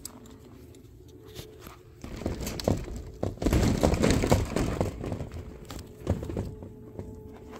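Shuffling and rustling of a person moving about and handling a dog's leash close to the microphone, with a few light knocks. It swells about two seconds in, is loudest around the middle, and fades again.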